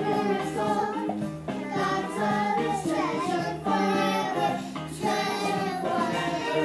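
A song playing, with young children's voices singing.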